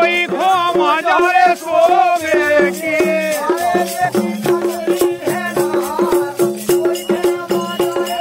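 Bundeli rai folk music: a voice singing long, wavering, ornamented notes for the first few seconds over a fast beat of drums and rattling percussion, with steady repeating low notes underneath.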